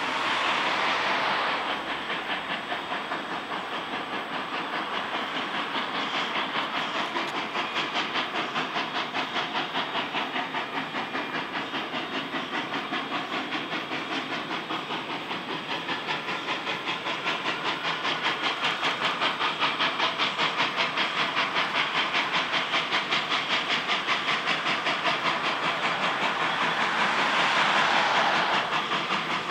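Steam locomotive SNCF 141.R.1244, a two-cylinder 141 R Mikado, working under steam with a steady run of rapid exhaust chuffs. Stronger bursts of steam hiss come right at the start and again near the end.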